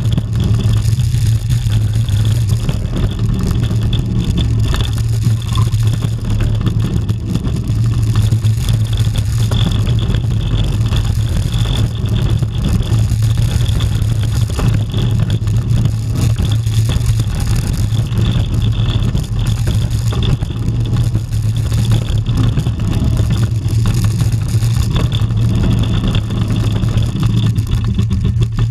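Rocky Mountain Construction hybrid roller coaster train running at speed: a steady low rumble of the wheels on the track, mixed with wind buffeting the onboard microphone.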